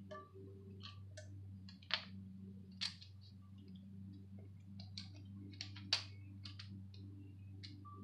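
Light, irregular metallic clicks and taps as a plastic timing chain guide and its bolt are fitted by hand against the timing chain of a 2.2 L Ecotec engine, with three sharper clicks standing out, over a steady low hum.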